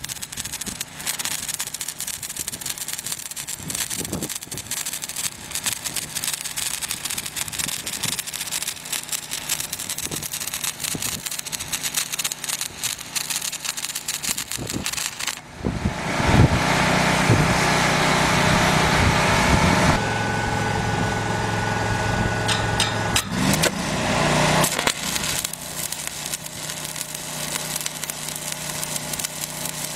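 Stick welding arc burning a 1/8-inch 7018 rod on steel plate, an even crackle and sizzle. A little past halfway a louder steady hum with low tones comes in over it for about ten seconds, then stops suddenly.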